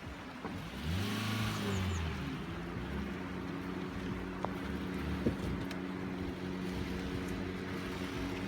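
A motor vehicle's engine running, its pitch rising and falling about a second in, then settling to a steady hum, over a constant rushing background.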